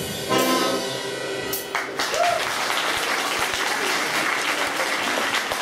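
A school wind band of brass, clarinets and saxophones holds its final chord, which cuts off about two seconds in; audience applause then takes over.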